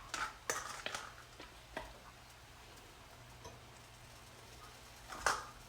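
Sharp clicks and taps of kitchen utensils against cookware: a quick scatter of them in the first two seconds, then a single louder knock about five seconds in.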